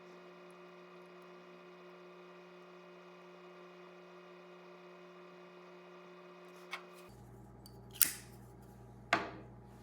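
Heat gun running steadily while shrinking heat-shrink tubing over a soldered capacitor, shutting off about seven seconds in. Three sharp clicks of handling follow.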